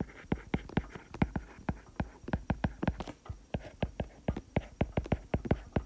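Stylus tapping on a tablet screen while handwriting, a quick irregular run of light clicks, about six a second.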